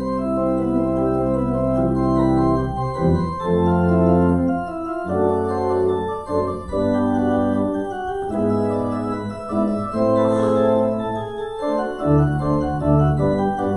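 Church organ playing slow, sustained chords. The deep bass notes drop out about three seconds in and come back near the end.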